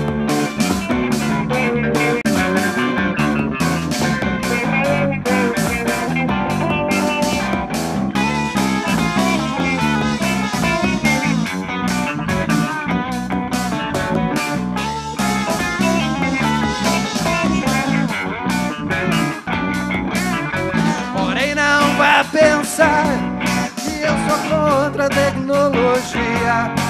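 Live band playing an instrumental passage on electric guitars and electric bass, with a steady pulse. A louder, wavering melody line comes in near the end.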